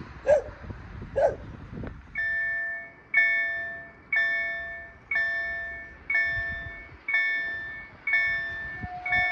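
KLD-4103 electric level-crossing bell starting up about two seconds in and striking about once a second, each stroke ringing and dying away: the warning that a train is approaching and the barriers are about to come down. Before it come two short chirps.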